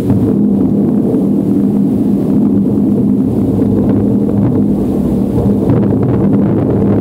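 Distant fireworks barrage, the many explosions merging into a continuous low rumble with faint crackling.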